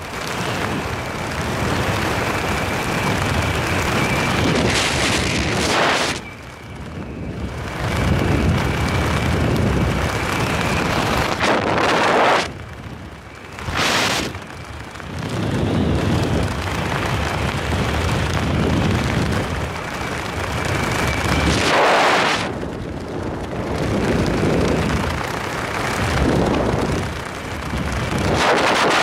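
Wind rushing over a helmet camera's microphone during parachute canopy flight, swelling and dropping in gusts every few seconds, with a faint steady high whistle through much of it.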